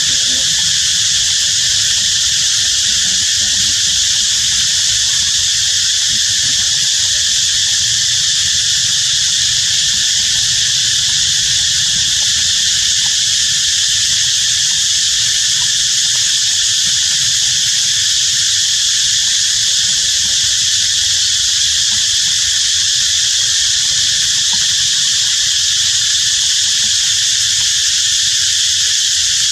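Loud, unbroken chorus of insects: a dense, even high buzz that holds steady throughout.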